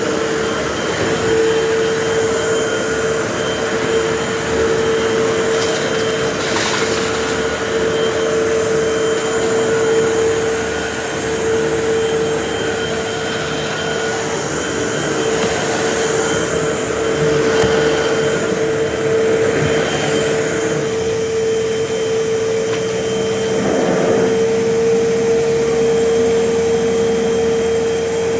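Vacuum cleaner running steadily: a constant high motor whine over the rush of air, swelling and easing a little in loudness.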